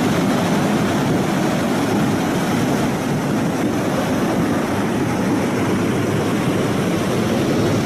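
Fast-flowing floodwater rushing past, a loud steady roar with no breaks.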